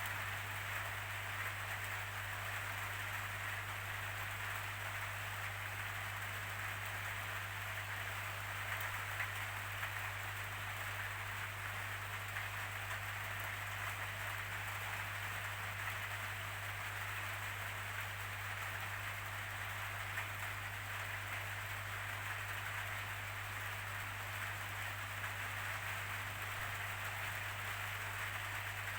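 Steady rainfall, an even hiss with no let-up, over a constant low rumble.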